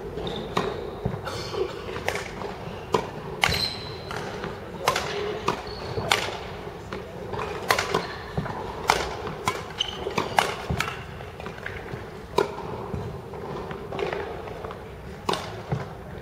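Badminton rally: rackets striking the shuttlecock in sharp, irregular cracks, about one or two a second, with shoes squeaking briefly and feet thudding on the hall's court floor.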